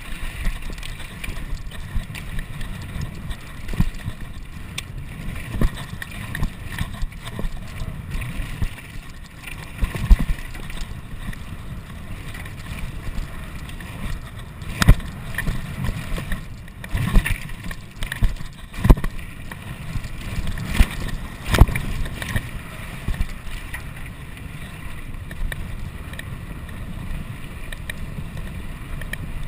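Wind rushing over the camera microphone as a Trek Slash 9 mountain bike descends a dirt downhill track at speed, with tyres on the loose dirt and frequent sharp knocks and clatters from the bike hitting bumps.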